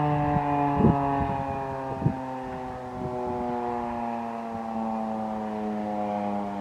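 Federal Signal 2001-SRNB electromechanical warning siren winding down at the end of its test, its tone slowly falling in pitch. Two brief thumps come about one and two seconds in.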